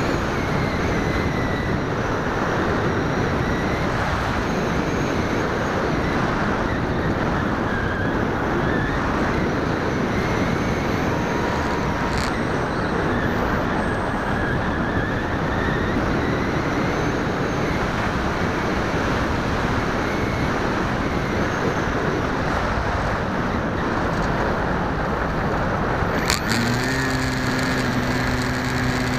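Wind rushing over the onboard camera of an FPV model aircraft in flight, with the thin whine of its motor and propeller drifting up and down in pitch. Near the end a sharp click comes, and then a steady low hum with a few held tones.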